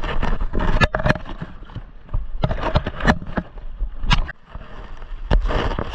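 Paddles splashing and knocking against an inflatable raft amid rushing river water, with a steady low rumble and many sharp knocks.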